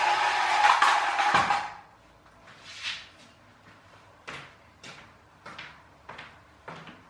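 A vintage all-metal clockwork toy car, freshly greased and oiled, whirs from its wound-spring motor with a steady hum as it runs across a wooden floor. A few knocks come before it stops abruptly just under two seconds in. Then footsteps on the wooden floor come closer, about one and a half steps a second.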